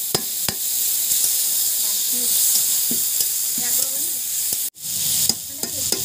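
Fish and potato curry frying in oil in a metal wok, sizzling steadily while a spatula stirs and scrapes it. There are a few sharp clacks of the spatula on the pan near the start, and the sound cuts out briefly near the end.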